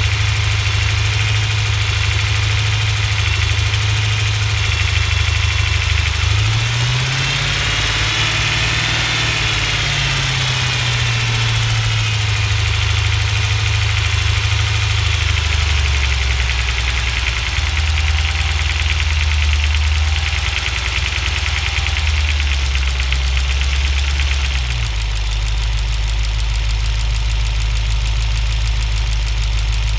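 Cold 6.1 L Hemi V8 running: the revs rise briefly, settle at a steady speed a little above idle, then drop back to idle near the end. Around 1400 rpm it carries a knock or tick that goes quiet at idle and at higher revs, which the owner hears only when the engine is cold.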